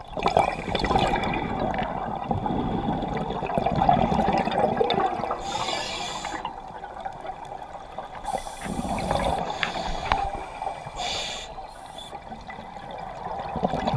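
Scuba regulator bubbles rushing and gurgling underwater as a diver breathes out, broken three times by a short high hiss.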